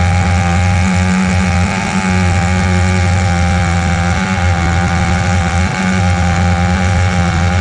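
105 cc Stihl 070-clone two-stroke chainsaw running steadily under load in an Alaskan chainsaw mill, ripping a pine log lengthwise.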